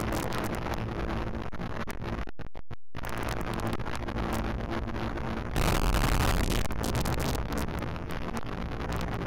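Radio-controlled model plane's motor and propeller, with wind rushing over an onboard camera microphone in flight. The recording crackles, cuts out several times in a row at about two and a half seconds in, and grows louder for about a second near the middle.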